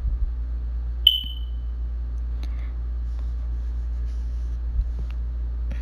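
A spoon tapping the mixing bowl: one sharp clink about a second in that rings briefly at a high pitch and fades. A low steady hum runs underneath, with a few faint handling clicks.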